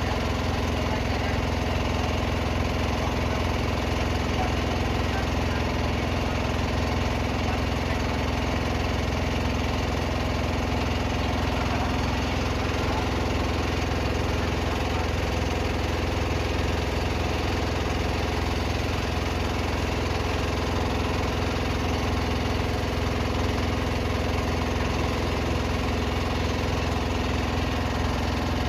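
A small boat's engine running steadily at an even speed, a constant low drone with no revving or breaks.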